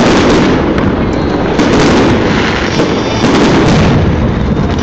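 Aerial fireworks shells bursting one after another: a loud, continuous barrage of booms and crackling, with stronger bursts at the start, about a third of the way in and again past halfway.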